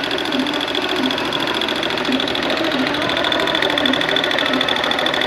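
Honda Bros 160 single-cylinder engine running steadily with a fast, even metallic ticking rattle: the strange engine noise that the owner is chasing.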